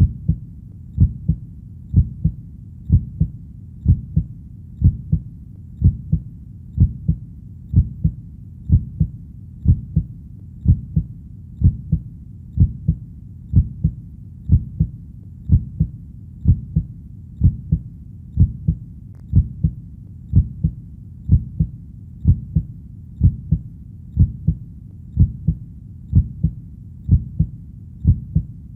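Heartbeat, a steady double thump (lub-dub) about once a second, low-pitched, over a faint low hum between beats.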